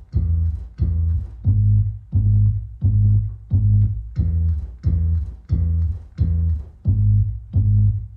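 Music played back through a Klipsch RSB-11 soundbar: a plucked bass line of short, evenly repeated low notes, about three a second.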